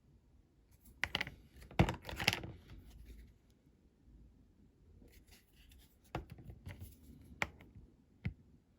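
Small parts of a 1:64 diecast model car being handled and fitted by hand: a cluster of clicks and scraping about a second in, then three sharp single clicks near the end.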